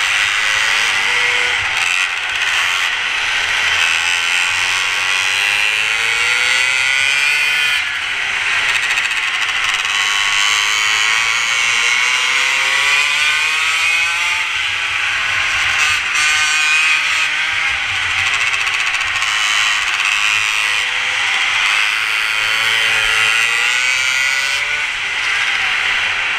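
Mini moto (pocket bike) engines running hard, their note rising and falling again and again as the bikes accelerate and ease off through the corners, over a continuous high buzz.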